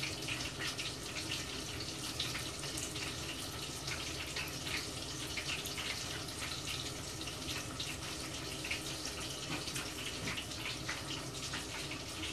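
Panko-breaded coconut shrimp deep-frying in hot oil: a steady sizzle full of small crackles and pops, with a faint steady hum underneath.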